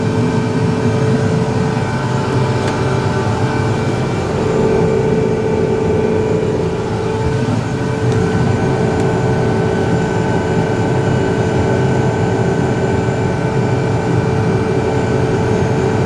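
Self-propelled crop sprayer running steadily as it drives through a field while spraying: a continuous engine hum with a constant whine over it.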